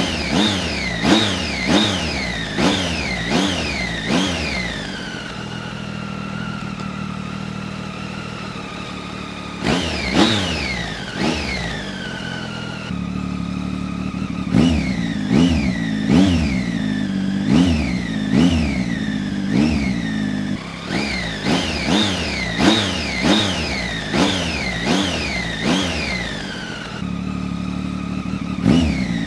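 2016 Triumph Tiger 800's inline three-cylinder engine, breathing through an Arrow end can with its dB killer baffle fitted, revved in repeated quick blips that drop straight back. Between the runs of blips it idles steadily, for several seconds after the first run.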